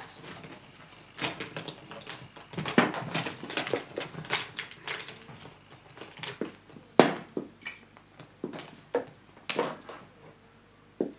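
Christmas baubles clicking and knocking against each other as they are handled, in an irregular run of light taps, with a sharper knock about seven seconds in.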